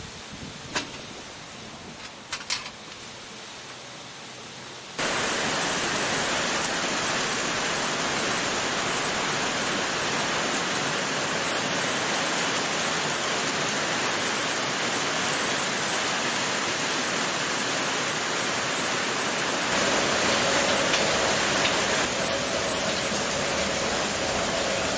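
Heavy rain coming down as a steady, even hiss that starts abruptly about five seconds in, after a few sharp clicks. A faint steady tone joins in near the end.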